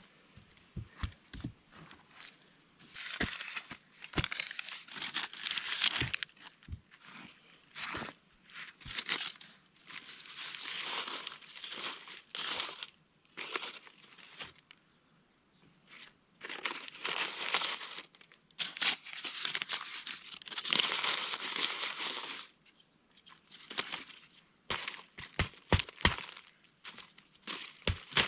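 Lined notebook paper being torn and crumpled by hand as tinder for a campfire, in several rustling bouts of a few seconds each. Dry sticks click and knock as kindling is set in the fire pit, most often near the end.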